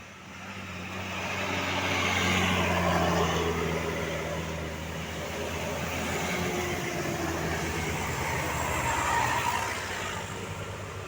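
A tour bus driving past up a hill, its diesel engine running steadily. The sound swells over the first few seconds and eases off near the end.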